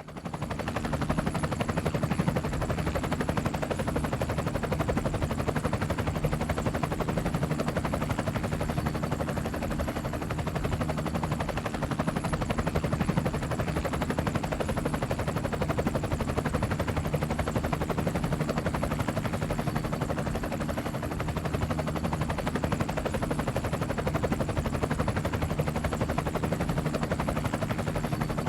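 Helicopter in flight: a rapid, even chop of the rotor blades over a steady engine drone, swelling up quickly at the start.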